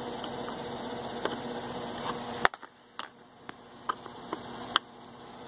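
Small clicks and ticks of a screwdriver working a Delrin plastic visor screw into a motorcycle helmet, over a steady hum. The hum cuts off suddenly with a sharp click about two and a half seconds in, and a few separate clicks follow.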